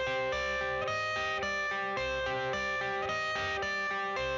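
Background music: an instrumental passage of a song, a melody of notes changing every half second or so over a steady bass, with no singing.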